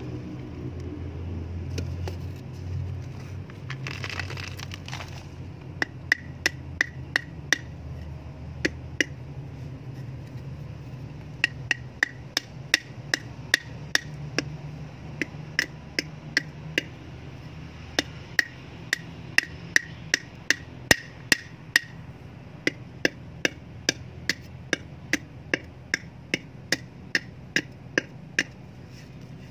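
Metal blade tip knocking repeatedly on the base of an upturned terracotta pot, chipping a hole through the clay. Sharp knocks one or two a second, in runs, each with a short ringing tone from the pot; they begin about six seconds in.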